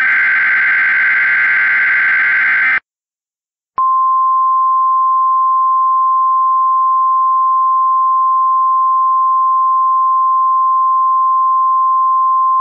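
Emergency Alert System SAME header burst: harsh, buzzy digital data tones for about three seconds. After a second of silence, the steady single-pitch 1050 Hz NOAA Weather Radio alert tone starts and holds, signalling the start of a new weather alert.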